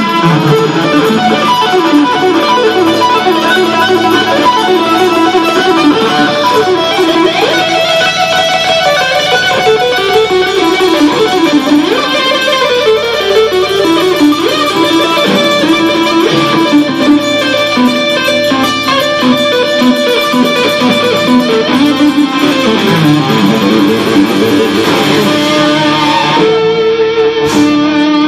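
Loud amplified electric guitar solo played live, fast runs of notes sweeping down and up in pitch, settling into held notes near the end.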